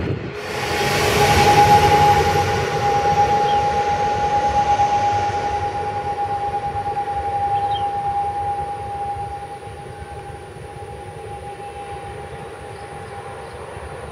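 ATR 72 turboprop airliner's engines and propellers running at high power, a loud drone with a steady high whine, loudest about two seconds in and fading as the aircraft moves away.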